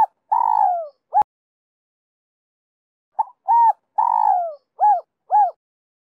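Spotted dove cooing: a long falling coo and a short coo in the first second, then from about three seconds in a full phrase of a short note, a coo, a long falling coo and two short closing coos. This is the call type keepers call "giọng son 2 hậu".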